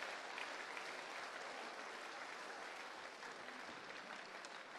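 Faint, steady applause from many people clapping, tapering off slightly toward the end.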